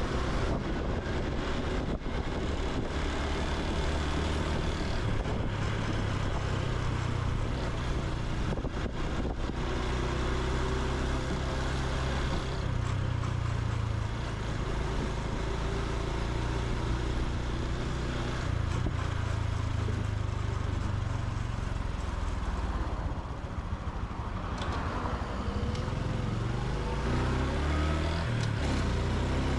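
Honda Super Cub C125's single-cylinder four-stroke engine and exhaust while riding. The engine holds steady speeds with step changes in pitch, dips a little past two-thirds of the way through, then rises in several climbs near the end as it accelerates through the gears.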